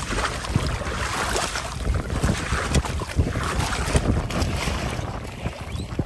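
Strong wind buffeting the microphone, with choppy water splashing against a small canoe's hull and outrigger float as it moves through wind waves.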